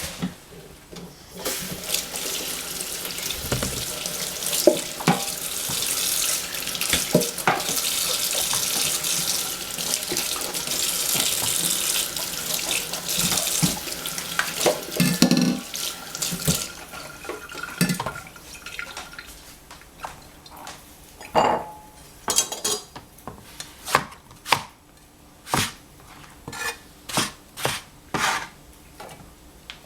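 Kitchen tap running into a sink, with knocks of things handled in the water; the water stops about halfway through, followed by scattered knocks and clicks.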